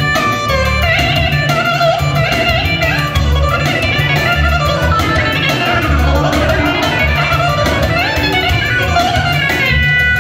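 Korg arranger keyboard playing a fast, ornamented solo melody over a steady drum beat.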